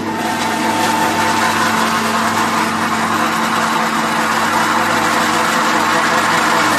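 Small flat-die feed pellet mill, driven by an electric motor, running under load: a steady hum under a loud, even grinding noise.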